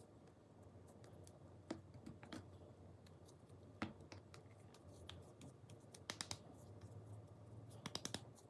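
Near silence with a low steady air-conditioner hum and a few faint clicks and taps: single ones about two and four seconds in, a quick group of three around six seconds, and a tight cluster near the end.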